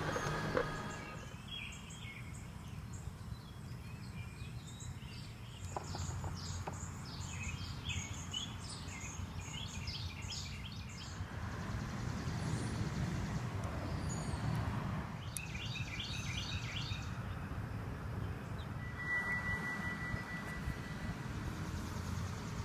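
Small birds chirping in quick runs of short high notes, over a steady low background rumble.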